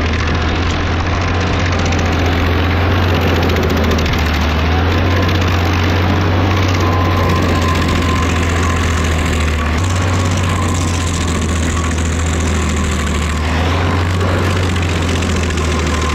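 Rayco RG50 stump grinder running under load as its cutter wheel grinds into a tree stump: a steady, loud engine drone with the cutting of wood layered over it.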